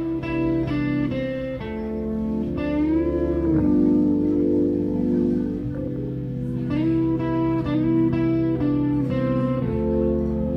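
Live band playing instrumental rock: electric guitar holding and bending sustained notes over a bass guitar line.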